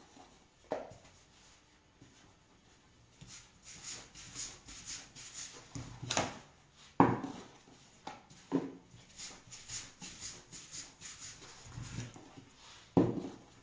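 Wooden rolling pin rolling out a sheet of pasta dough on a wooden board: quick back-and-forth rubbing strokes, with a few sharper knocks of wood on wood.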